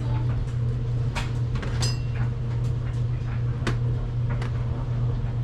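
Scattered light clicks and knocks of food-prep handling over a steady low hum.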